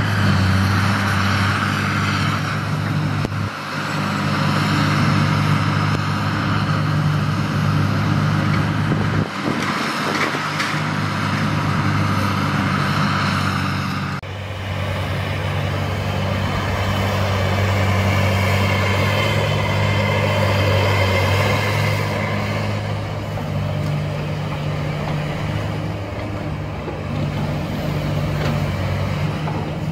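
Komatsu PC300 hydraulic excavator's diesel engine running with a steady drone. The sound changes about halfway through as the shot changes.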